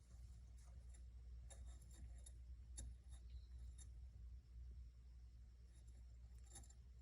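Near silence with a handful of faint, scattered small clicks and scratches from a pet hamster.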